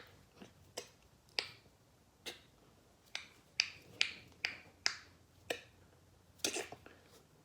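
Mouth-made imitation of sniper rifle shots: a series of about a dozen sharp mouth clicks, irregularly spaced, a couple of them in quick pairs near the end.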